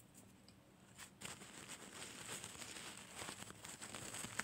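Rustling and crinkling of fast-food paper and cardboard packaging being handled, starting about a second in, with many small crackles and one sharp tap near the end.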